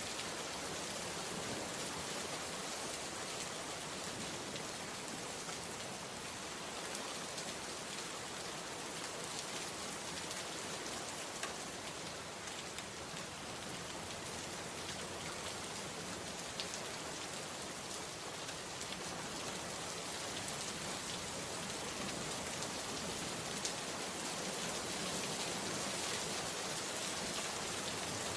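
Steady rain falling on a surface, an even hiss with scattered individual drop ticks; slightly louder in the last few seconds.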